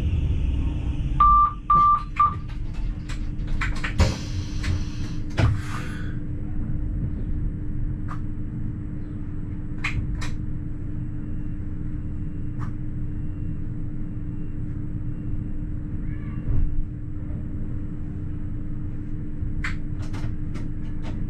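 Inside the driver's cab of a Wynental- und Suhrentalbahn ABe 4/12 'Saphir' light-rail car: a steady electrical hum with three short beeps a little over a second in, then scattered clicks and a brief hiss.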